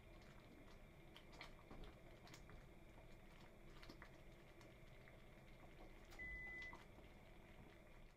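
Faint soft pops and ticks of thick pumpkin-millet milk porridge simmering in a stainless saucepan while it is stirred with a spatula, over a low steady hum. A brief steady tone sounds about six seconds in.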